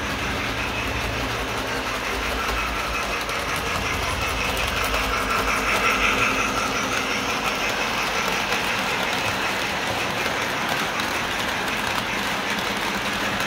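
Electric model train running on the layout's track: a steady whir and rattle of motor and wheels on the rails, a little louder about six seconds in as the locomotive and cars pass close.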